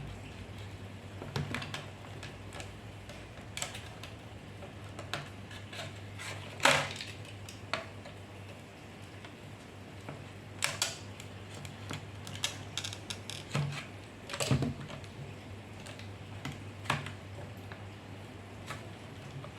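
Scattered clicks and taps of small plastic parts being handled and worked by hand, over a low steady hum; the sharpest knocks come about seven seconds in and again around fourteen seconds.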